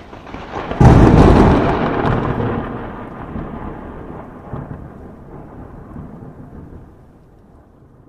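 A sudden loud boom like a thunderclap about a second in, rumbling on and fading away over the next six seconds.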